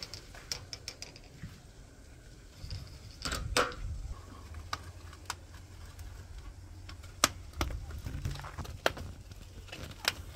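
Puppies gnawing on wooden fence slats: irregular sharp cracks and crunches of teeth on wood, the loudest about a third of the way in and again past the middle.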